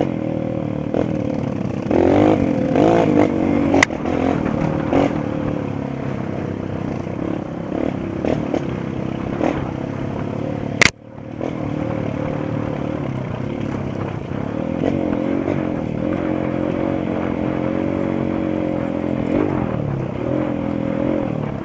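Honda CRF230 trail bike's single-cylinder four-stroke engine running under way, revving up a couple of times, with scattered clattering knocks. A sharp click about halfway through, after which the sound briefly drops out and comes back.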